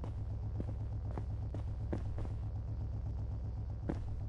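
Steady low rumble of a vehicle engine running, with a few faint clicks scattered through it.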